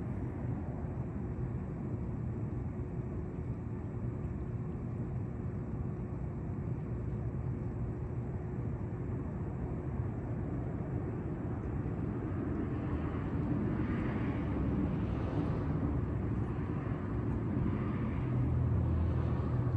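Steady city traffic noise, a low rumble that swells louder about two-thirds of the way in and again near the end as vehicles go by.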